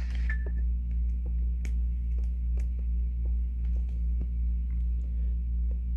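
Steady low hum with faint, scattered clicks as a flip phone is handled, and a brief high beep about a third of a second in.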